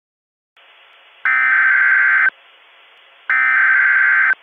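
Emergency Alert System SAME header: two loud one-second bursts of high-pitched digital data tones, a second apart, over faint radio hiss that starts about half a second in. The header encodes a Child Abduction Emergency (AMBER Alert).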